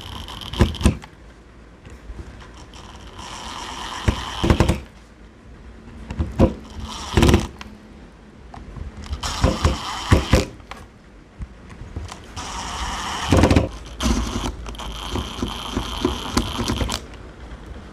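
Cordless power tools being handled and set down on a worktable, with repeated knocks and clunks. Between them come several short stretches of a high, steady electric-motor whine that starts and stops.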